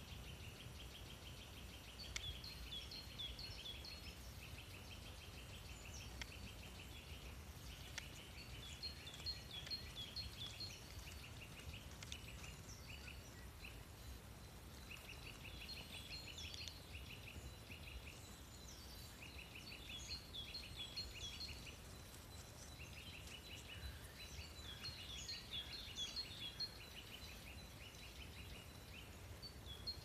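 Songbirds singing in woodland: short phrases of quick high notes repeated every few seconds, heard faintly over a low background rumble.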